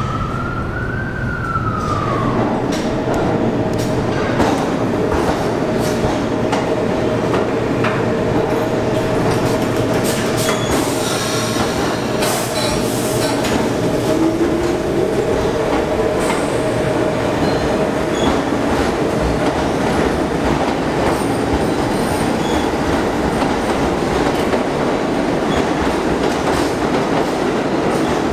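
A New York City subway train running on the track in an underground station: a steady rumble of steel wheels on rail with repeated clicks over the rail joints and a steady whine. In the first two seconds a motor whine rises and then falls in pitch.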